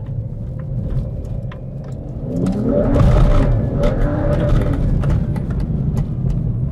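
BMW 135i's turbocharged straight-six running under load. It accelerates from about two seconds in, its pitch rising, then carries on at a high, steady level.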